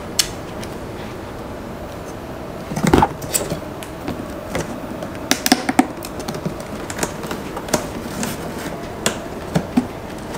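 Large cardboard scooter box being handled and turned over: scattered taps, knocks and scrapes of hands on the cardboard, with one louder thump about three seconds in.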